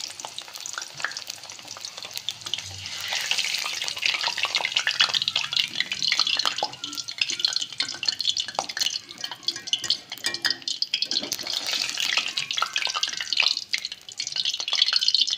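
Purple yam (garadu) cubes deep-frying in hot oil: steady sizzling and crackling, with short metal clicks and scrapes as a wire spider strainer stirs and lifts the fried pieces from the kadai.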